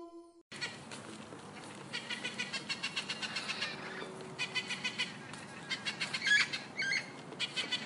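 A wolf's howl ends about half a second in. Then a parrot, a juvenile crimson rosella, gives runs of rapid chattering calls, several times.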